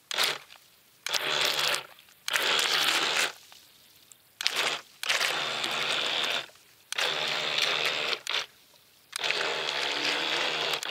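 Electric motors of a remote-control model battleship whirring in about seven bursts of a second or so each, starting and stopping as the throttle is worked, with a steady hum under the whirr.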